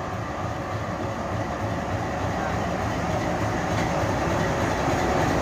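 WDM-3A diesel-electric locomotive, its ALCO 16-cylinder engine running, pulling a passenger train slowly into a platform; the engine noise grows steadily louder as the locomotive comes alongside.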